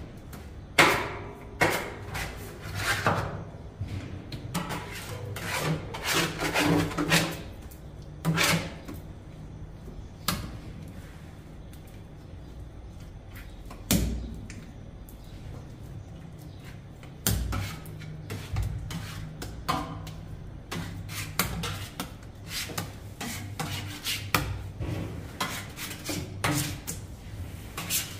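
Working sounds in a traditional sangak bakery: irregular knocks, scrapes and rubbing as dough and tools are handled at the pebble-bed oven, over a steady low hum.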